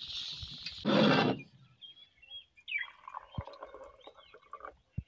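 Meat sizzling in a perforated pan over a wood fire, with a louder rush about a second in before the sizzle stops. Fainter short chirping sounds and a few clicks follow.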